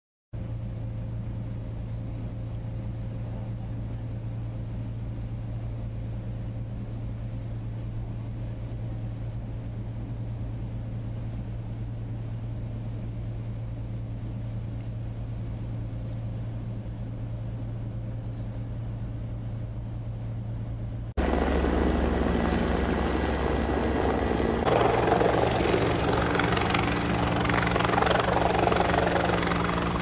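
A steady low engine drone with a few held tones, then about two-thirds of the way through a sudden switch to a much louder helicopter flying close by: rotor and engine noise, with a high steady whine joining a few seconds later.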